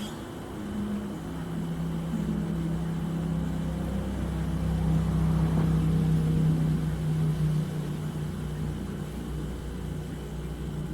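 A steady engine hum that grows louder about halfway through, then eases off again.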